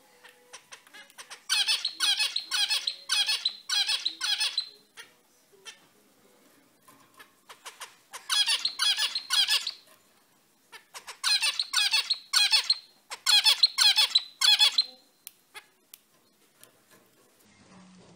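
Male zebra finch singing in three bouts of quickly repeated high notes, about two to three a second, with pauses between the bouts and a few faint short notes in the gaps.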